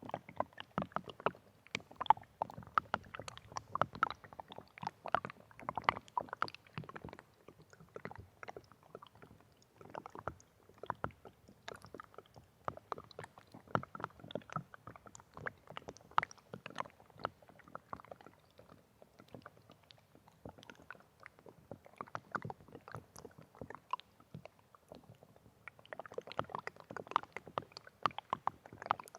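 Water sloshing and splashing in many small irregular splashes and gurgles, coming in busy clusters with quieter gaps between them.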